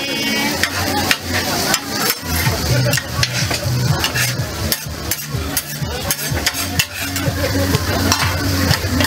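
Metal spatulas scraping and clacking on a steel griddle as a heap of fried noodles is tossed and stirred, over the steady sizzle of the noodles frying. The strokes come quickly and irregularly.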